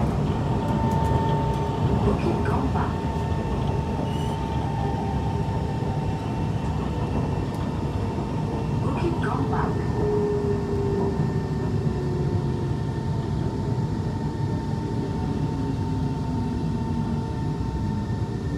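Interior of a Kawasaki C151 metro train running on its rails: a steady rumble of wheels on track with a constant whine, a few brief squeaks, and motor tones slowly falling in pitch as the train slows into a station in the second half.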